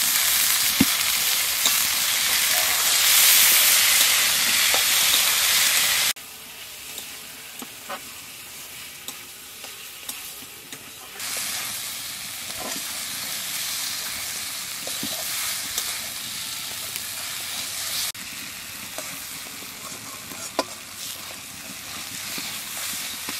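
Fresh tomatoes and green chillies frying in hot oil in a metal kadai: loud sizzling at first, which drops suddenly about six seconds in to a quieter frying sizzle. A metal spatula stirs and scrapes the pan, giving scattered light clicks through the quieter part.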